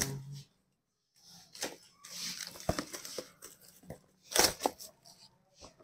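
Hands tearing open the wrapping of a smartphone's cardboard retail box and handling the box: a rustling tear about two seconds in, then a few sharp taps and knocks.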